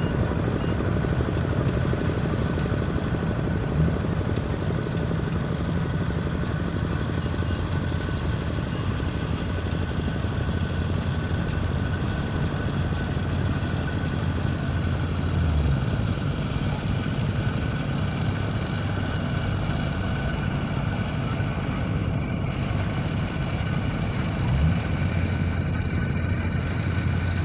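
Tractor engine running steadily, a continuous low drone with a steady higher whine over it.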